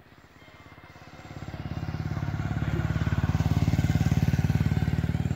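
A passing motor vehicle with a small engine, running with an even, fast beat. It grows louder from about a second in, is loudest near the end, then drops away quickly.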